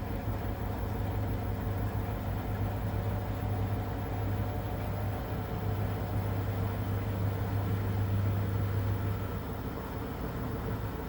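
Beko 10 kg, 1400 rpm washing machine running mid-cycle, a steady low motor hum.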